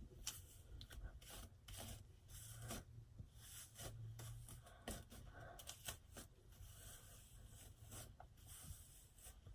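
Faint, scattered rubbing and rustling of a comb being worked through wet hair to detangle it.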